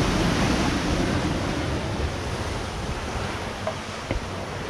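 Ocean surf washing and breaking among granite boulders, a steady rushing wash with wind buffeting the microphone. A single light tap sounds about four seconds in.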